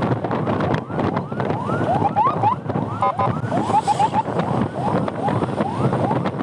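Emergency siren sounding in quick repeated sweeps, with a faster run of short chirps near the middle, over loud wind rushing on a riding motorcycle's helmet microphone.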